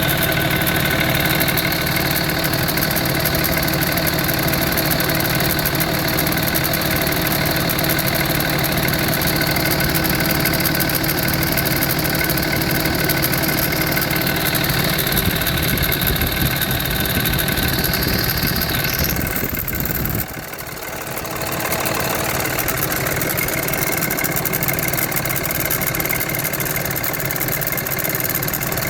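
2005 5.9 Cummins inline-six turbo diesel idling cold with a rattle. The rattle persists after a new belt, tensioner, alternator and idler pulley, and fades once the engine warms past about 140°. The low rumble drops away briefly about twenty seconds in.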